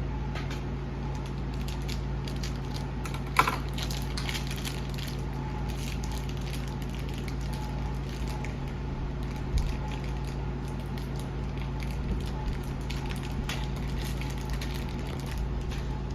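Plastic toy packaging being handled and worked open, giving scattered soft crinkles and clicks, with a sharper click about three seconds in, over a steady low hum.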